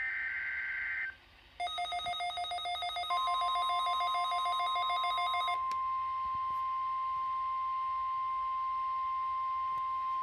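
NOAA Weather Radio weekly test over a receiver: the last burst of the SAME digital header, a raspy data squawk lasting about a second, is followed by a rapid pulsing electronic beep for about four seconds. About three seconds in, the steady 1050 Hz warning alarm tone starts and holds.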